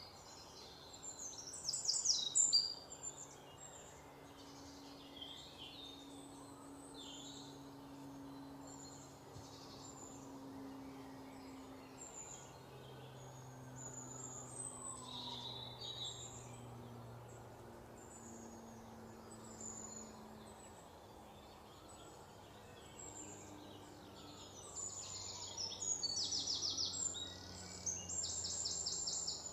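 Several songbirds chirping and calling, with rapid trills that are loudest about two seconds in and again through the last few seconds, over a faint low hum.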